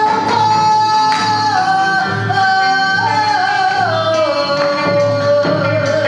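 A female Kawachi ondo singer holds a long, wavering melismatic line that slowly steps downward in pitch, over live accompaniment with a regular low beat.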